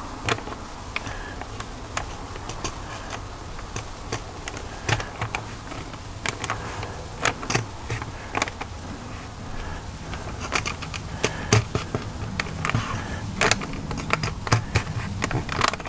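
Paper-wrapped brisket being pressed and handled, with scattered crinkles and crackles of the paper, over a steady low buzz.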